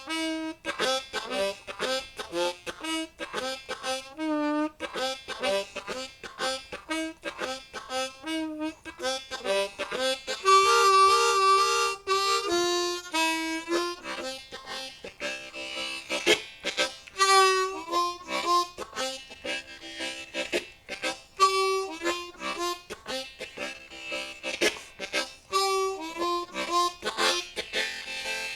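Low F diatonic harmonica (Hohner Marine Band Crossover) played solo as a chordal blues shuffle in second position, in short rhythmic chord pulses with bent notes. It is loudest about ten to twelve seconds in, where a high note is repeated and held.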